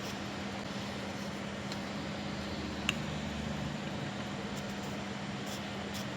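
Steady machine hum with a faint hiss, and one light click about three seconds in.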